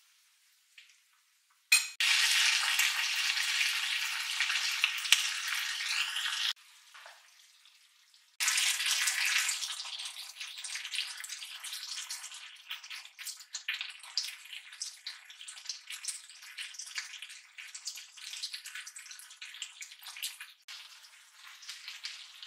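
Pollock, potatoes and shishito peppers in a spicy red sauce sizzling in an oiled frying pan. A loud sizzle starts suddenly about two seconds in and stops abruptly. It resumes loudly a couple of seconds later and gradually settles into a softer, crackling sizzle.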